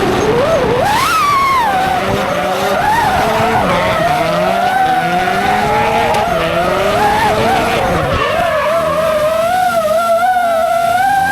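Drift car sliding with tyres squealing in a wavering, shifting pitch, over an engine revving up and down.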